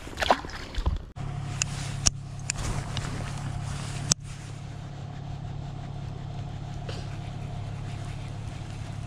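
A released bass splashes back into the water, then from about a second in a small boat motor hums steadily, a low drone with a faint higher whine, with a few sharp clicks in the seconds after it starts.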